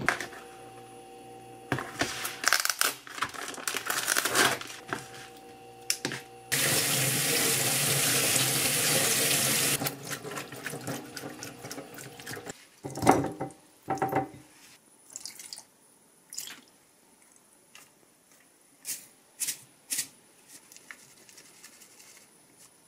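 Kitchen tap running into a stainless steel sink for about three seconds, with water splashing through a wire mesh strainer. Clattering and knocks of handling come before it, a sharp knock about 13 seconds in, then a few light taps and clicks.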